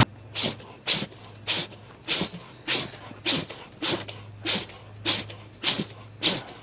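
A bear sneezing over and over: short breathy puffs in a steady series, about eleven of them, one every half second or so, over a low steady hum.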